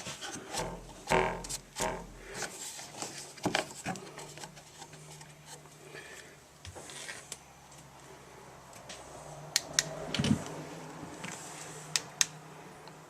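Scattered knocks and sharp clicks of hands working at the back of a refrigerator, over a faint steady low hum.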